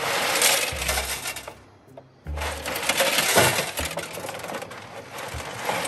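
Cylindrical pellet cat litter sliding and clattering over the plastic sieve grate as the drum of a semi-automatic litter box is turned. It comes in two pours: a short one, a brief lull about a second and a half in, then a longer one from a little past two seconds.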